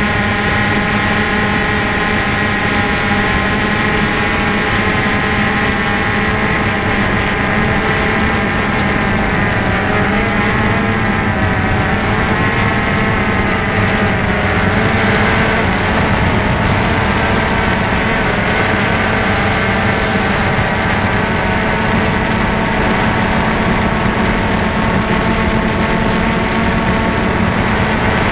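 DJI Phantom 2 quadcopter's electric motors and propellers whining steadily, heard close up from the camera mounted on the drone. The pitch wavers for a few seconds around the middle.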